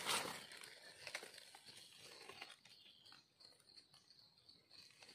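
Faint rustling and crinkling of dry fallen leaves, with small scrapes and ticks, as a knife digs through leaf litter to free an emerging mushroom.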